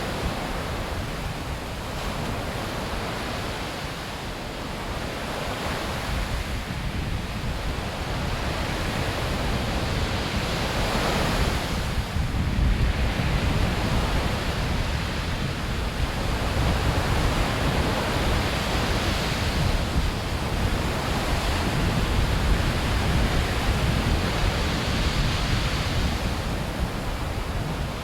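Calm sea ambience: gentle waves washing onto the shore in slow swells every few seconds, with a steady rush of surf and a little wind.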